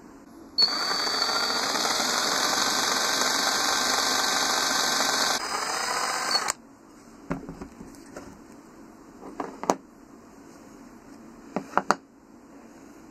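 Small power drill running for about six seconds as its twist bit bores through the die-cast metal wing of a toy car, its note changing about five seconds in before it stops. A few small clicks and taps follow as the model is handled.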